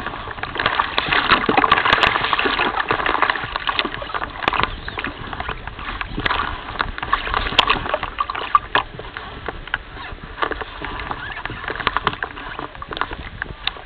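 Water lapping and splashing close to the microphone, with many small irregular crackles and clicks. It is busiest in the first few seconds and settles somewhat towards the end.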